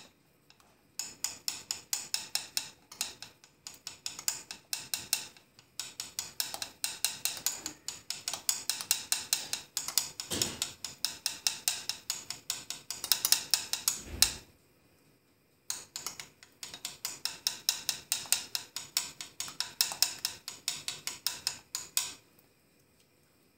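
Metal teaspoon clicking quickly and repeatedly against the rim of a bowl as batter dumplings are scraped off it into a pot of broth, about four or five ticks a second, stopping briefly a little past halfway and then going on.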